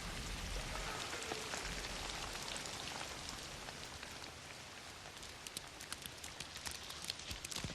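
Steady rain hiss, slowly fading. Separate drips and taps stand out more and more over the last few seconds.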